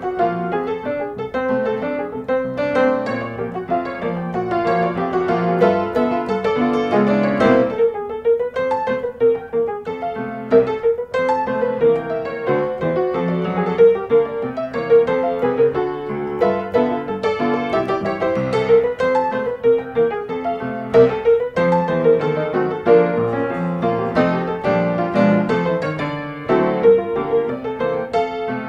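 Background piano music: a melody over chords, running without a break.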